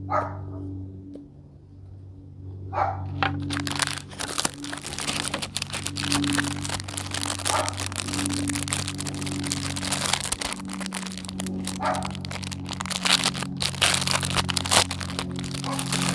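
Plastic packaging crinkling and crackling as the fidget toy set is unboxed by hand, starting about three seconds in, over soft background music with held low notes.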